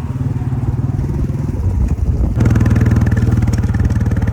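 Royal Enfield Bullet single-cylinder engine running under way. About two and a half seconds in it gets louder as the throttle opens, and its rapid, even exhaust beats come through plainly.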